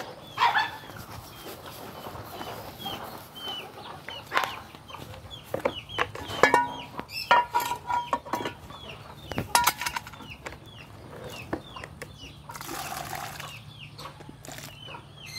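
Chickens calling: a steady run of short, high, falling peeps, several a second. Scattered knocks and clatter come in the middle, and a brief scraping hiss comes near the end.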